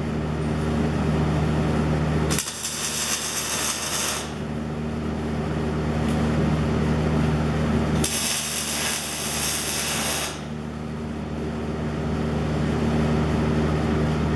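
A welding machine humming steadily, with two bursts of welding-arc hiss and crackle, each about two seconds long, as tack welds are laid to hold the steel channel to the plate.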